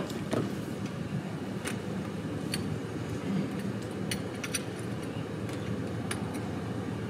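Engine idling steadily, with scattered light metallic clicks and clinks of fittings being handled on the lift.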